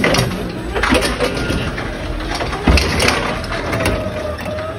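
Forklift running and backing out of a loaded trailer, with a steady low rumble and sharp clunks and knocks from the truck and its mast, and one heavy thump about halfway through. A faint whine from the machine comes in near the end.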